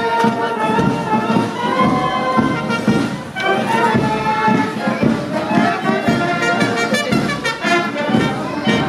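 Small wind band of flutes, clarinets, saxophones, trumpets, tuba and snare drums playing a piece together, with a steady beat.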